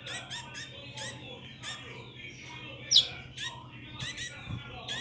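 Fledgling finches begging for food with rapid, repeated high chirps, several a second, while the female feeds them. One louder, sharper call stands out about three seconds in.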